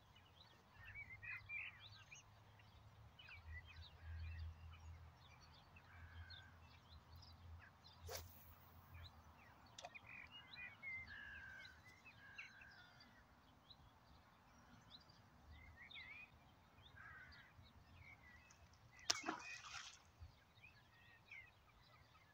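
Faint chirps and short calls of small birds, with a short louder burst of noise about nineteen seconds in.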